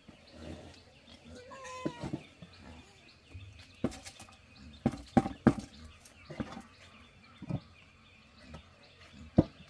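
Wooden paddle working a thick mixture in a metal cooking pot, with several sharp knocks as it is tapped against the pot and a plastic bucket, and a metal lid set on the pot near the end. A short animal call about two seconds in.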